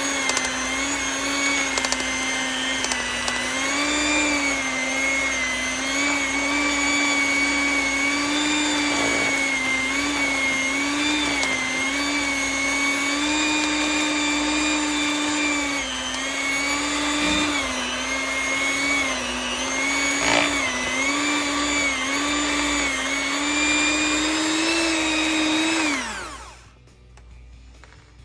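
Electric hand mixer running with its beaters in softened cream cheese: a steady motor whine whose pitch wavers slightly. About two seconds before the end it is switched off and winds down to a stop.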